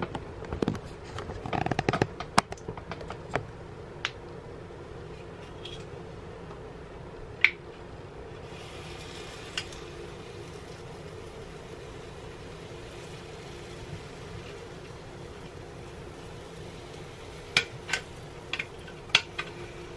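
Scattered light clicks and taps from a plastic batter dispenser and waffle maker being handled while batter is poured onto the plates, over a steady low hum. A faint hiss sets in about eight seconds in.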